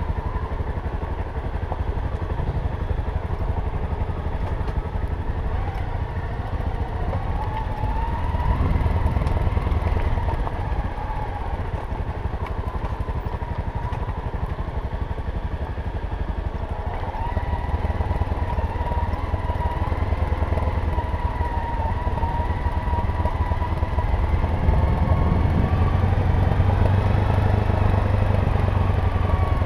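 Dirt bike engine running on a rough dirt track, its note rising and falling with the throttle over a low rumble. It gets louder about a third of the way in and again near the end.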